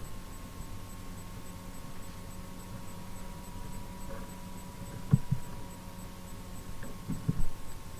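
Steady electrical hum with a faint high tone under it, broken by a quick double mouse click about five seconds in and a few soft clicks near the end.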